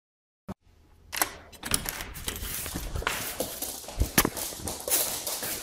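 A dog's claws and paws clattering and scrabbling on a laminate floor as it runs about, a quick irregular run of clicks and taps starting about a second in.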